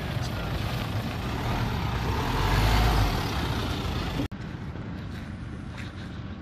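Four-wheel-drive vehicle's engine running, growing louder about two to three seconds in. About four seconds in the sound cuts off abruptly and drops to a quieter, steady background.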